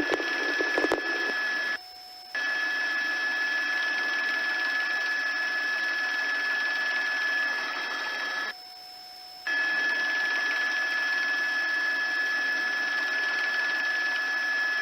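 Steady hiss of an open radio channel with a few faint steady whine tones in it and no voice. It cuts out abruptly twice: briefly about two seconds in, and for about a second near the middle.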